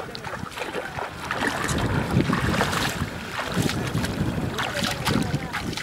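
Shallow seawater lapping and splashing right at the microphone, with wind buffeting it in irregular gusts.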